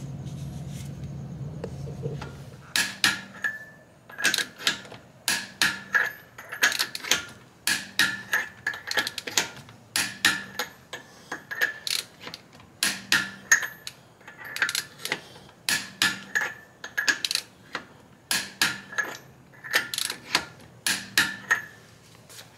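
Long-handled hand ratchet clicking as the lug nuts are run down on a wheel: clusters of sharp metallic clicks about once a second, each stroke ratcheting. A low steady hum comes before the clicking starts, about three seconds in.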